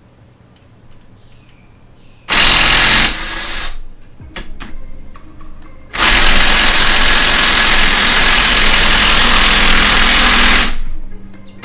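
Handheld power tool, such as a drill or impact driver, run on a transmission fastener in two bursts: a short one about two seconds in, then a steady one of about four and a half seconds, with a few clicks between.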